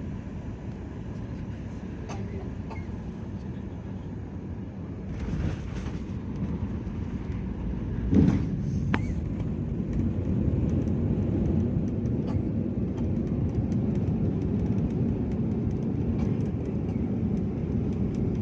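Steady low rumble of an airliner's cabin in flight or on the approach, growing slightly louder, with a single thump about eight seconds in.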